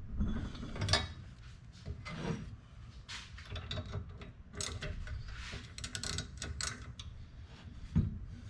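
Hand tools and metal engine parts being handled: irregular clicks, rubs and scrapes, with sharper knocks about a second in and near the end.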